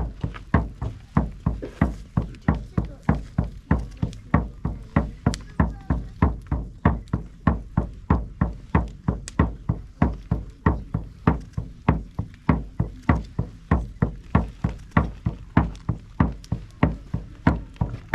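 A drum beaten in a steady, even pulse, about two and a half strokes a second, each stroke deep and short.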